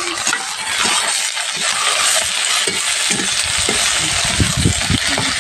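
Chopped onions and spring onion greens sizzling in hot oil in a steel kadhai, with a metal spatula clinking and scraping against the pan as they are stirred. The stirring knocks come more often and heavier in the second half.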